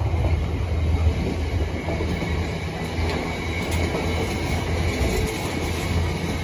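Container wagons of a freight train rolling past at speed: a steady low rumble of steel wheels on the rails that swells and dips as the wagons go by.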